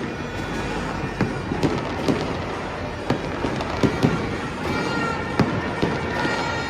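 Fireworks exploding in a steady barrage: a string of sharp bangs, several a second at times, over a continuous crackle.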